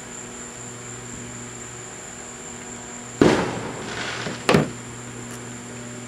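Fireworks going off: a sudden bang about three seconds in, its rumble dying away over most of a second, then a second sharper bang just over a second later, over a steady background hum.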